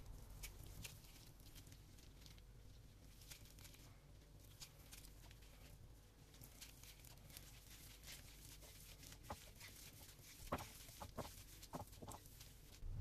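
Faint squishing and crackling of boiled potatoes being mashed by hand with sliced onion and green chilli, heard as scattered soft clicks, with a few louder ones near the end.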